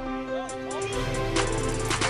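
Background hip hop music: a steady beat with sustained synth tones and a light, even hi-hat, the bass dropping out briefly and coming back in.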